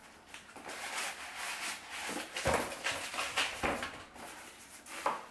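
Cardboard packaging rustling and scraping as a griddle is pulled out of its box, with a few sharp knocks midway through.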